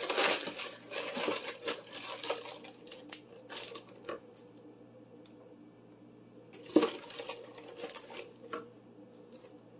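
Kitchen handling noises as a box of Bisquick baking mix is picked up and tipped into a glass mixing bowl: rustling and light clatter, busiest in the first couple of seconds, with one sharp knock about seven seconds in followed by a little more clatter.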